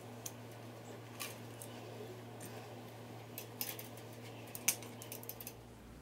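Light, irregular clicks and taps of clear plastic parts being handled, a plastic tube and a flat plastic disc knocking together as the disc is fitted onto the tube. The sharpest click comes a little before the end, over a faint steady low hum.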